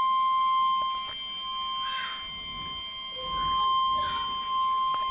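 NOAA Weather Radio 1050 Hz warning alarm tone: one long, unbroken high beep at a single pitch. It signals that a warning message, here a tornado warning, is about to follow.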